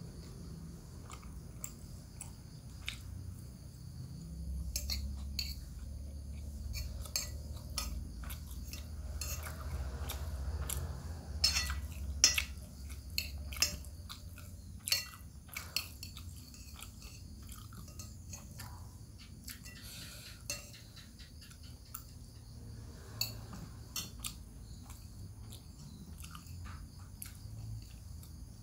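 Metal spoon clinking and scraping against a plate in sharp, irregular clicks, with chewing between them. A low rumble runs underneath for several seconds in the first half.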